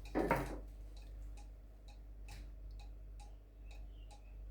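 Mechanical cuckoo clock ticking as its pendulum swings: steady, evenly spaced ticks at about two a second. A brief louder sound comes about a quarter of a second in.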